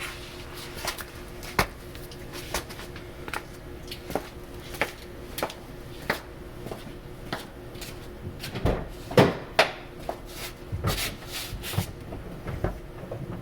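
Engine bay of a 2000 Honda Insight running with a steady hum under irregular clicks and knocks, louder and more frequent in the second half. It is a noise the owner suspects comes from a bad water pump.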